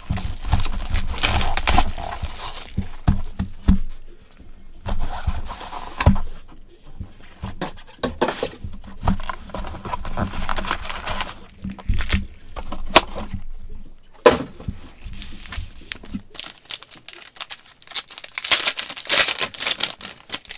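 Plastic wrapping torn and crinkled off a 2020 Panini Luminance football card box, then the box handled and a shiny pack wrapper torn open, in irregular bursts of rustling and crinkling.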